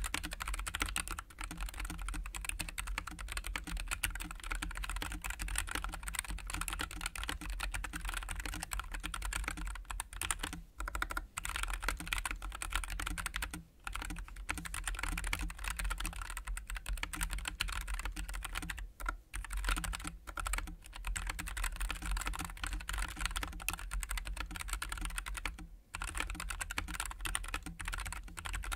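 Continuous typing on a stock Nuphy Air96 low-profile keyboard with Gateron low-profile 2.0 Brown tactile switches, double-shot PBT keycaps and an aluminium frame over an ABS bottom case. The keystrokes fall in a dense run, broken by a few brief pauses.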